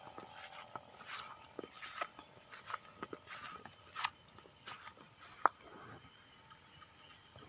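Insects droning with a steady high-pitched note, with scattered faint ticks and rustles and one sharp click about five and a half seconds in.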